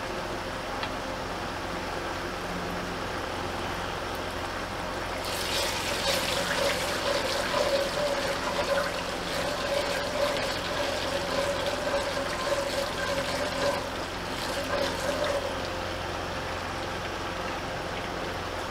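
Wooden spatula stirring salt through heating oil in a non-stick kadai, scraping against the pan in quick strokes from about five seconds in until about fifteen seconds, over a steady background hiss.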